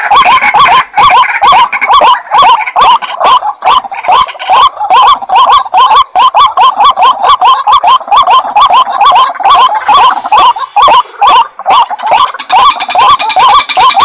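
White-breasted waterhen (ruak-ruak) calling: a fast, unbroken run of short repeated notes, about four or five a second. This is the swamp recording used as a lure call to draw the birds out.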